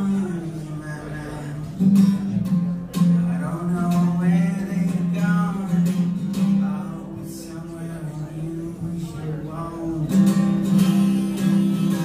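Steel-string acoustic guitar strummed in a live song, with a man's voice singing over it in places.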